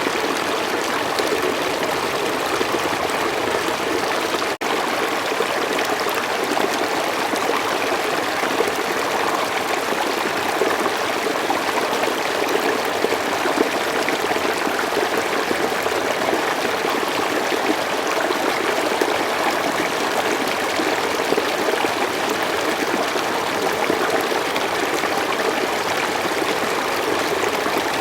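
Slow forest stream flowing steadily, a constant rush and trickle of running water, broken by one momentary dropout about four and a half seconds in.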